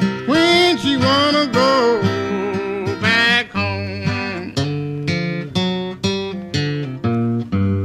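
Acoustic guitar playing a Piedmont-style blues passage over a steady bass pulse, with a few bent, gliding notes in the first two seconds.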